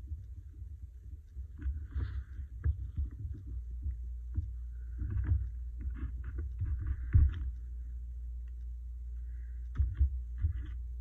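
Fingers pressing and rubbing on a paper collage card, with soft scratchy rustles and light knocks on the tabletop, a few knocks coming near the end. A low steady hum lies under it.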